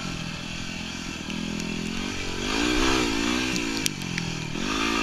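Yamaha WR250R's single-cylinder four-stroke engine under way, the throttle opened up about two seconds in, eased off near four seconds and opened again just before the end.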